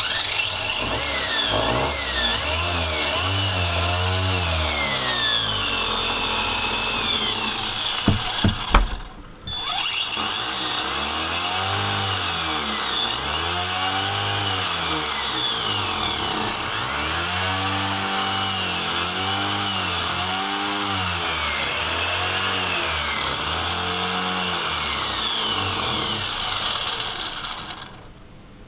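Schumacher Cat 3000 RC buggy with a Castle Mamba Max brushless motor being driven hard. Its motor whine sweeps up and down over and over as it speeds up and slows, with a few sharp knocks about eight seconds in.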